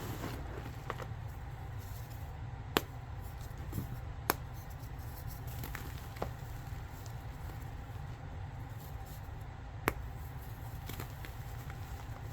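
Gym chalk being crushed by hand: soft crumbling with a few sharp, crisp cracks spread through it, over a steady low hum.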